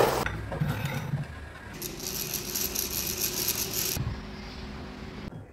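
A gas torch's hiss cuts off at the very start. About two seconds in, a light, rapid metallic rattle follows for about two seconds as silver wire is coiled around a steel rod, then stops suddenly.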